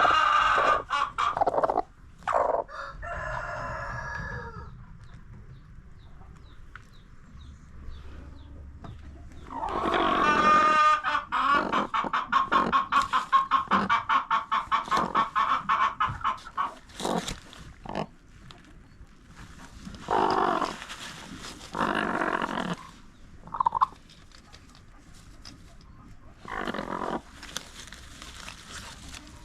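Chickens calling: a long call about ten seconds in runs into several seconds of rapid, repeated clucks, with shorter calls before and after. The calls include crowing.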